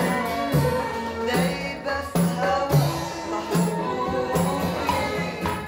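A band's music: a woman singing over keyboards and hand percussion with a shaker or tambourine rattle, and bass notes in a steady beat.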